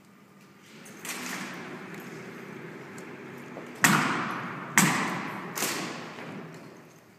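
Rifle drill routine: three sharp impacts about a second apart, each ringing out in a large hall, the first two loudest, over a steady noise that starts about a second in.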